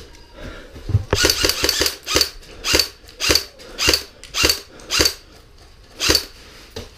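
Airsoft gun firing: a quick run of rapid shots about a second in, then single shots roughly every half second to a second.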